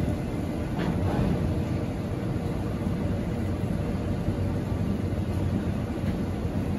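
Aurizon freight train's wagons rolling slowly over a level crossing: a steady low rumble, with a single knock about a second in.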